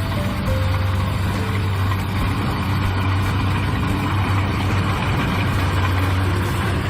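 Kubota DC-70 rice combine harvester's diesel engine running steadily under a constant deep hum, with the rattle and whir of the machine working.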